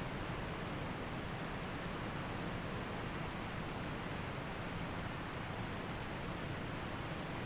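Waterfall and creek water rushing, a steady even noise with no changes.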